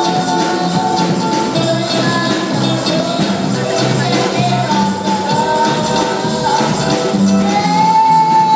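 Church worship music: a tambourine shaking along with a band, with a wavering sung or played melody over a steady bass.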